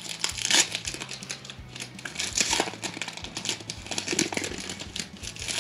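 Trading-card pack wrapper being torn open and the cards handled: irregular crinkling, rustling and small clicks.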